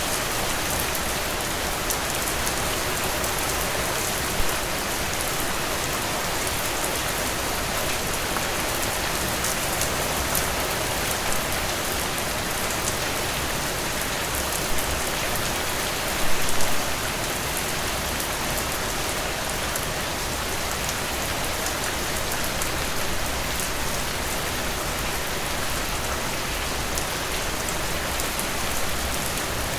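Heavy rain falling steadily in a dense, even downpour. A few single louder drop hits stand out, the strongest a short cluster about sixteen seconds in.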